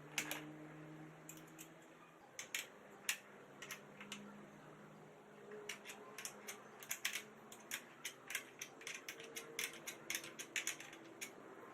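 A string of light, sharp clicks and taps, a few scattered at first and then coming irregularly several times a second in the second half.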